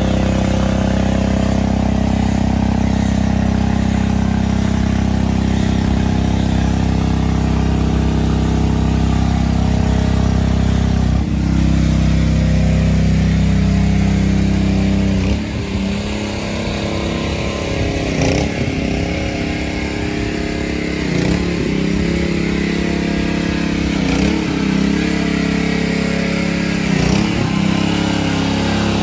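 Pressure washer engine running steadily while soap is foamed onto a pickup. About halfway through, its note drops and becomes uneven, changing briefly every three seconds or so.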